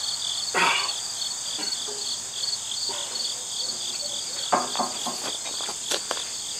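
Crickets chirping in a steady pulsing rhythm. A few clicks and knocks from the steel clamp-on pallet forks being handled on the loader bucket come about half a second in and again near the end.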